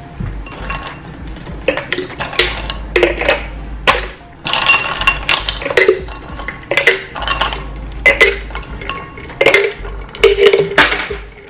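Hard kitchenware clinking and clattering: about a dozen sharp knocks with short ringing, as glassware, ice and dishes are handled.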